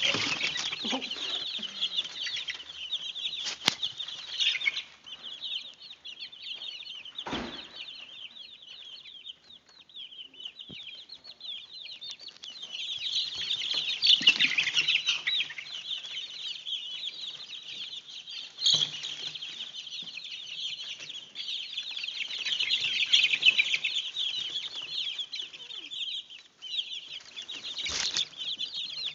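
A flock of about three-week-old chicks peeping continuously, many short high chirps overlapping in a dense chatter that swells louder twice. A few sharp thumps cut through it.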